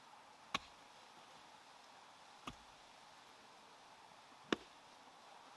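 Three short, sharp knocks, evenly spaced about two seconds apart, the third the loudest, against a quiet background.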